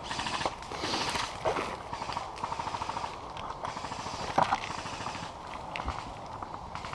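Airsoft guns firing: runs of rapid light pops and clicks, with one sharper snap about four and a half seconds in.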